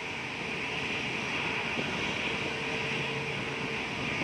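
Jet airliner engines running steadily: a continuous hiss with a faint whine, holding level without rising or falling.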